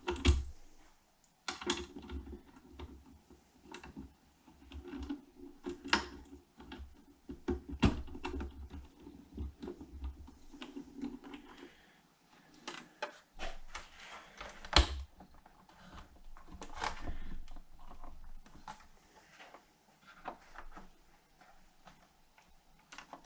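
Irregular clicks and clacks of a motorcycle saddlebag latch kit being worked by hand: a key turning in the lock cylinder and the latch parts knocking. A low hum runs under the clicks for about the first half.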